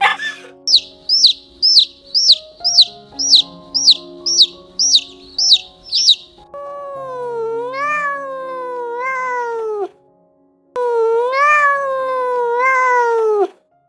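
A run of quick high chirps, about two a second, then two long drawn-out cat meows, each rising and then sliding down, over background music.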